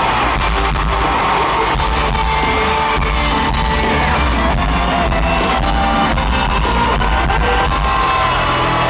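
Live pop-rock band music played loud over a stadium PA, with electric guitar and singing, heard from within the crowd. The deep bass drops away about eight seconds in.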